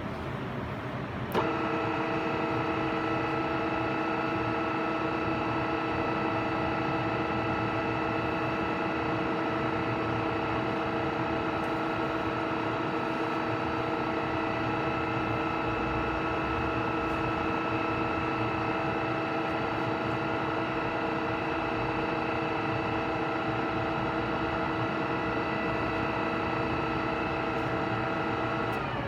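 Oya RE2-1300A radial drilling machine switched on with a click about a second in, then running at a steady speed with an even gear whine of several fixed pitches. Near the end it is switched off and the pitch slides down as it winds to a stop.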